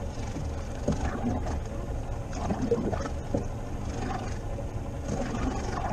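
Rigid inflatable boat drifting at sea: a steady low rumble of wind and water against the hull, with a few light knocks and clicks.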